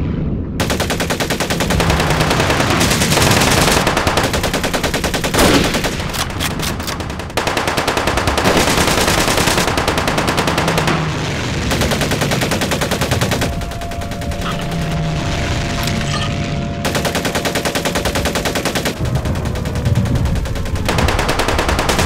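Battle sound effects of a firefight: rapid, near-continuous machine-gun fire mixed with other gunshots, barely pausing.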